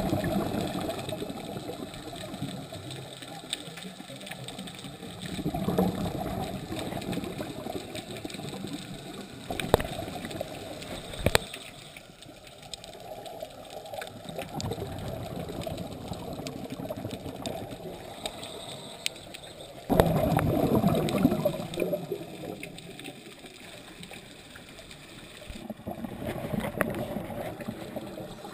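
Scuba diver's exhaled bubbles gurgling out of the regulator, heard underwater, in swells every five to six seconds with quieter stretches between breaths. A couple of sharp clicks come about halfway through.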